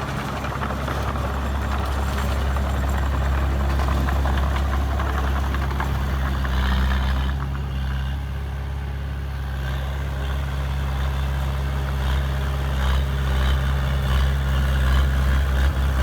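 Heavy diesel engine of an earthmoving machine running steadily at an even low pitch, getting a little louder near the end.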